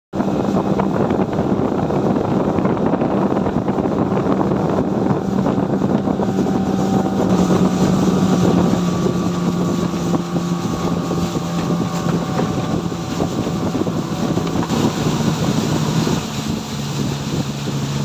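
Engine of the motorboat carrying the microphone, running steadily under way, with wind buffeting the microphone and water rushing past. The engine note drops a little about halfway through and again near the end as the boat eases off.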